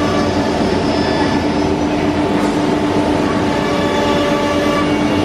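Holztek CNC nesting router running, its spindle cutting a wooden panel: a steady machine noise with a steady whine, unchanged throughout.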